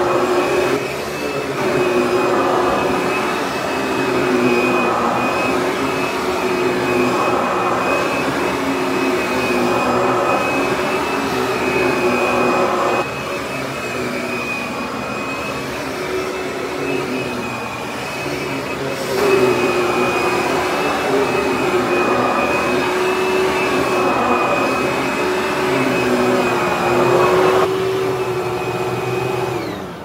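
Hoover WindTunnel bagless upright vacuum running on carpet: a steady motor whine with a high tone, swelling and easing as it is pushed back and forth. At the very end it is switched off and the motor winds down.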